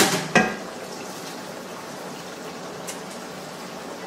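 Pasta water boiling steadily in a pot on a stovetop. Two short sharp clinks of a utensil against a pot come right at the start.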